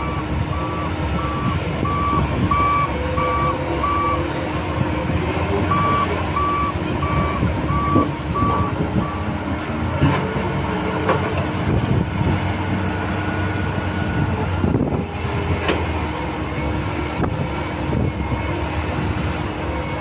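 Heavy diesel engines of a Cat 330C excavator and a Cat 740 articulated dump truck running steadily, with a reversing alarm beeping about three times every two seconds. The beeping pauses briefly about 4 s in and stops about 9 s in; a few sharp knocks come later.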